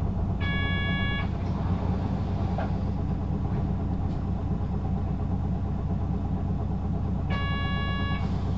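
Hino KV234N3 city bus with six-speed manual gearbox, heard from on board: a steady engine rumble. A short electronic tone sounds twice, near the start and near the end, about seven seconds apart.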